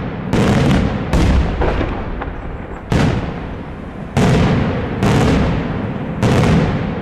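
Daytime fireworks: aerial shells bursting overhead with loud bangs, about six in seven seconds at uneven intervals. Each bang is followed by a long echoing rumble that runs into the next.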